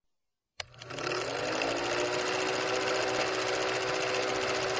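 Old film projector running: after a click about half a second in, a fast, even mechanical clatter with a motor hum that rises in pitch as it gets up to speed, then holds steady.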